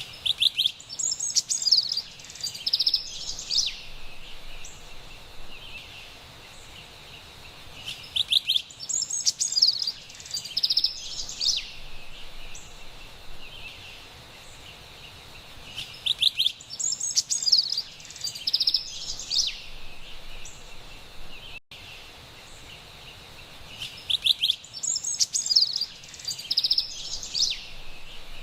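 A songbird singing the same short, high chattering song phrase four times, about every eight seconds, each phrase opening with a quick trill, over a steady faint background hiss.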